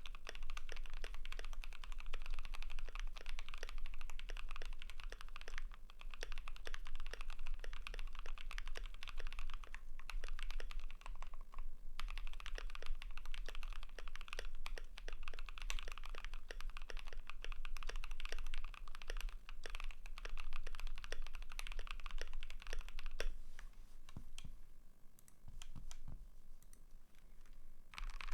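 Fast typing on a Keychron Q3 mechanical keyboard with lubed KTT Strawberry linear switches, PBT keycaps and a steel plate: a dense stream of keystrokes, with a short pause about ten seconds in and sparser keystrokes near the end.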